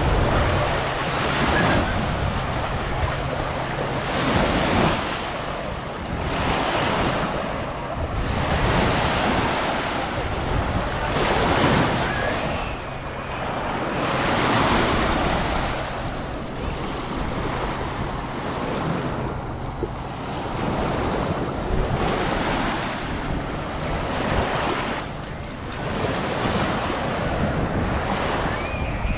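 Sea waves washing onto a sandy beach, the surf swelling and fading every few seconds, with wind buffeting the microphone.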